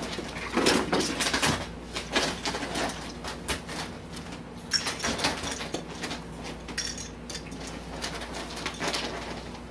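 Hollow plastic ball-pit balls knocking and clattering against each other and a plastic tub as a ferret scrambles among them, in quick irregular clicks.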